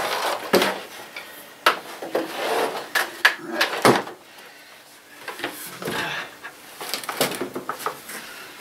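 Irregular clicks, knocks and rustling as cables and plugs are pulled and handled against a wooden desk.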